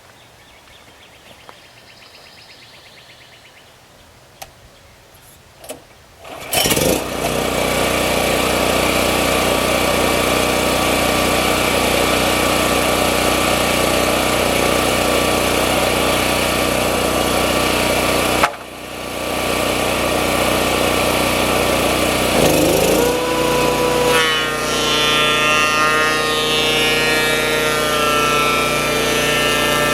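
After a few quiet seconds with a couple of clicks, a DeWalt 13-inch thickness planer starts up about six and a half seconds in and runs with a loud, steady noise. The sound drops out for a moment about 18 seconds in and comes straight back. About 23 seconds in, a pitched whine rises and then holds steady over the noise.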